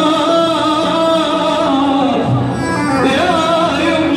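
A man singing a long, ornamented Arabic-style melody into a handheld microphone with instrumental backing, amplified through a sound system: held notes that slide between pitches, with a brief dip a little past the middle.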